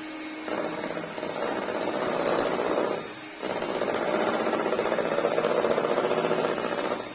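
Electric hand mixer running steadily, beating cocoa sponge-cake batter, with a brief dip in the sound about three seconds in.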